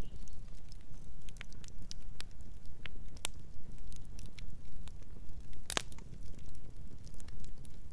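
Fire crackling: a steady low rumble with scattered sharp pops, one louder pop about three-quarters of the way through.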